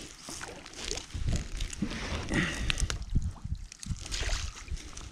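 Water splashing and dripping as a gillnet is worked in over the bow of a metal boat, with irregular low knocks and thumps on the hull and deck and a few sharp clicks.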